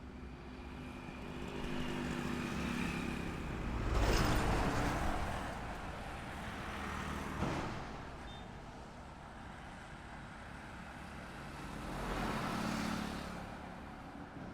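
Highway traffic: several vehicles pass by in turn, each swelling up with engine and tyre noise and fading away. The loudest passes about four seconds in, and another comes near the end.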